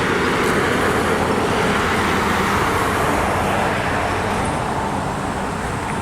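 Road traffic noise: a vehicle passing on the road, swelling in the first few seconds and easing off toward the end.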